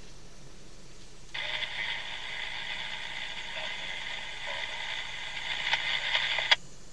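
Slowly passing freight tank cars give off a steady metallic screech of wheels and brake shoes on the rails, typical of a freight train braking to a crawl. It starts suddenly about a second in and stops sharply with a click near the end.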